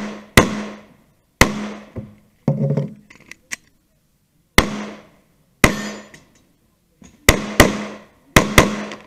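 Glock 19 pistol fired in a course of fire, about nine shots, each with a short echo. A few come at about one-second intervals, then there is a pause of two or three seconds, and near the end the shots come in quick pairs.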